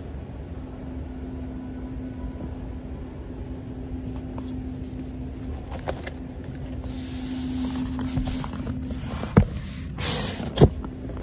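Steady mechanical drone with a constant low hum. A hiss swells about seven seconds in and again near the end, with two sharp knocks close together near the end.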